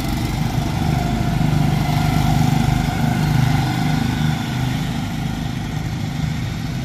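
Small engine running steadily, growing a little louder about two to three seconds in and then easing back.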